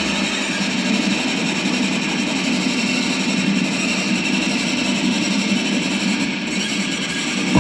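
Bowed electric string instrument, amplified into a steady, dense, grinding drone with no clear melody or separate notes.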